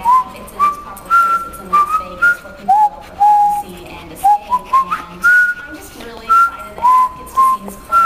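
Newborn baby whistling: a run of short, clear whistle notes, about two a second, stepping up and down in pitch.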